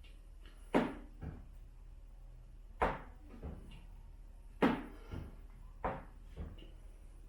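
A series of about eight sharp knocks and clunks at irregular spacing, the loudest about a second, three seconds and four and a half seconds in, over a faint steady hum.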